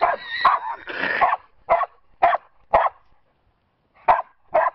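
Dog barking: a rough flurry over the first second or so, then three sharp single barks about half a second apart, a pause, and two more near the end.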